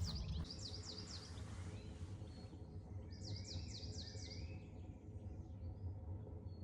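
Small songbird singing: quick series of high down-slurred notes, one near the start and another about three seconds in.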